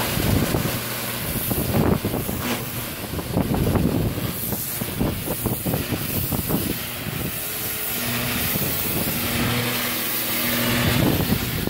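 Pressure washer wand blasting a high-pressure jet of water against a fibreglass boat hull to strip off barnacles and growth: a loud, continuous spraying hiss and splatter. Under it runs a steady engine hum, which is clearest at the start and again from about two-thirds of the way in.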